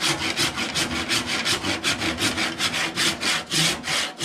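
Hand saw cutting through an oak rafter with quick, even back-and-forth strokes, about five a second.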